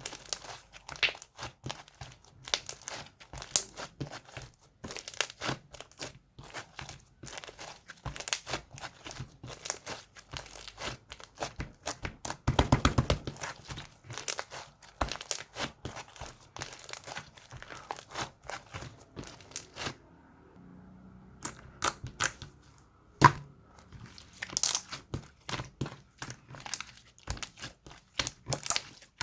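Hands unboxing and handling slime: dense, irregular crinkling and crackling clicks. A quick run of louder clicks comes just before the halfway point, and there is a short quiet pause about two-thirds of the way through.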